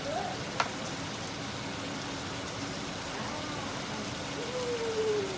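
Pork and vegetables sizzling steadily as they are stir-fried in a pan, with one sharp knock about half a second in and a short falling voice sound near the end.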